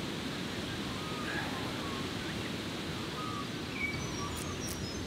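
Steady rush of a flowing river, with birds chirping here and there; a few short high chirps come in near the end.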